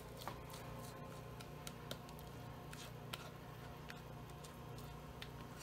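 Scattered faint ticks and light scrapes of a spoon against a glass mixing bowl as thick brownie batter is scraped out into a cast iron skillet, over a low steady hum.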